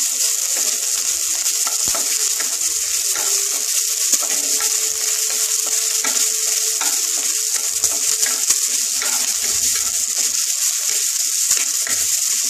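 Chopped onions sizzling steadily in hot vegetable oil in a non-stick kadai, stirred with a wooden spatula that adds small scraping clicks against the pan.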